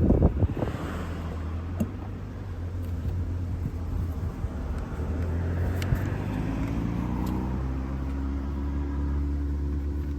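Lancia Delta HF Integrale Evoluzione I's turbocharged four-cylinder engine running steadily while driving, its pitch rising a little past the middle as the revs climb.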